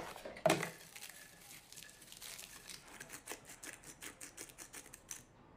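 A plastic deli-container lid is pulled open with a sharp pop, then ridged potato chips are crushed by hand, giving a quick run of crisp crackles that stops shortly before the end.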